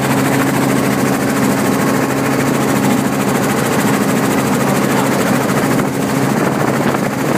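Helicopter engine and rotors running: a loud, steady drone with a low hum.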